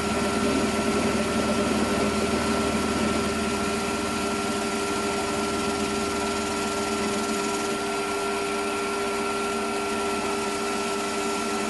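Metal lathe running with a steady motor and gear whine while a turning tool cuts a workpiece held offset in a four-jaw chuck, the cut nearly cleaned up to full diameter. A low hum underneath drops away about seven seconds in.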